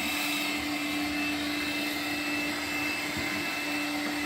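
Makita 18-volt cordless vacuum running steadily: an even motor hum with a high whine above it.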